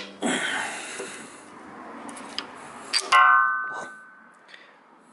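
Metal engine parts being handled as a diesel fuel injector is set into its bore in a cylinder head: a click, a scrape lasting about a second, light clinks, then a single ringing metallic clang a little after three seconds that fades out.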